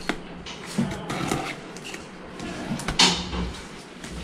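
Hands opening a cardboard box, fingers picking at and peeling the packing tape on its top, with scattered scratching and a louder tearing sound about three seconds in.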